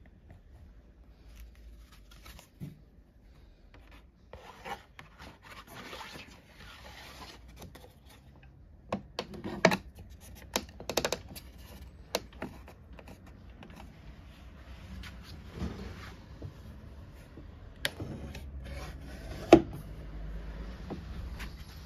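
Wooden parts of a hand-cranked organ being handled: wood rubbing and sliding in a slot, with scattered knocks and clicks and a sharp wooden knock near the end.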